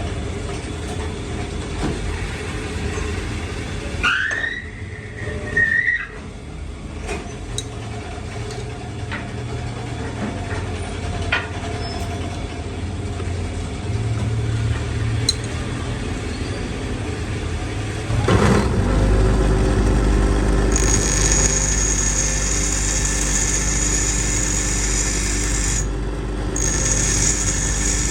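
Workshop machinery: a brief high squeal, then about eighteen seconds in a machine starts up and runs steadily with a low hum and a high whine.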